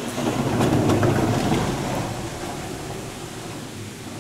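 A heavy sliding door to the tunnel platform being slid open: a deep rolling rumble that swells within the first second and then fades, with a few light clicks.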